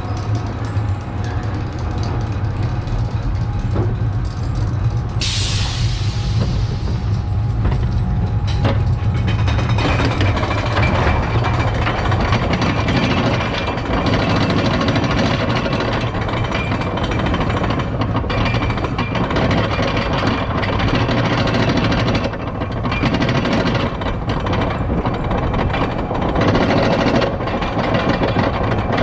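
Amusement ride machinery running with a steady low hum, a burst of compressed-air hiss about five seconds in, then a louder, fuller rumble and rushing noise from about ten seconds in as the ride runs.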